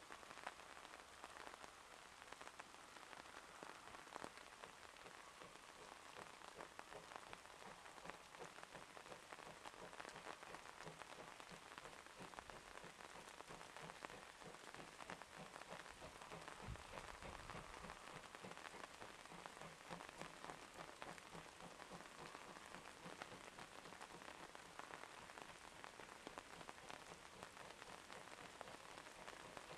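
Near silence: a faint, even hiss with fine crackling, with no clear beat from the distant locomotive.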